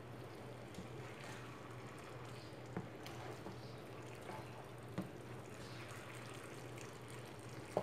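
Plastic spatula stirring thick tomato sauce in a nonstick frying pan: faint wet squelching and scraping, with three light clicks of the spatula against the pan.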